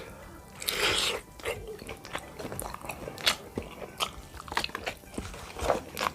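Close-up eating sounds of bakso meatballs being bitten and chewed: irregular wet clicks and smacks, with a longer noisy swell about a second in.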